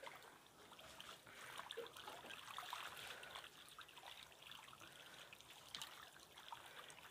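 Faint trickling and splashing of water as a netful of oranda goldfish thrash in the shallow water held in a hand net, with small scattered flicks and drips.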